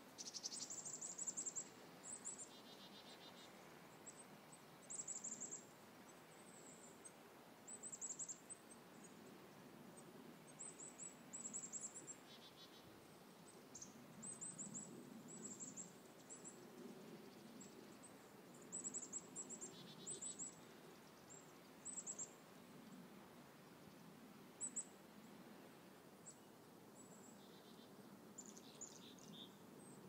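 Faint, very high-pitched squeaky chirps from an Anna's hummingbird, in short clusters every couple of seconds. A scratchy buzz is mixed in four times, in the pattern of the species' repeated song. A faint steady low background hum runs underneath.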